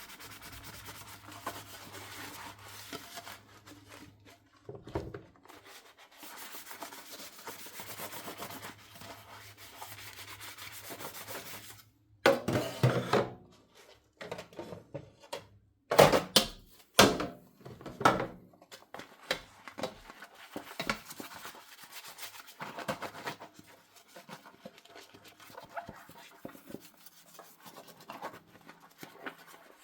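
Dishes being scrubbed by hand with a sponge, a steady rubbing and scratching, broken about twelve seconds in and again a few seconds later by loud knocks and clatter as dishes are handled, then lighter, intermittent scrubbing.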